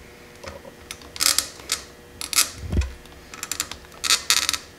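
Loose right-hand handlebar on a Harley-Davidson Sportster 48 clicking and clunking in short rattly bursts as the grip is worked back and forth by hand. The joint inside the bar, where it steps down from 1¼ inch to 1 inch, has worked loose again after being drilled and MIG-welded; the owner is unsure whether the weld itself broke.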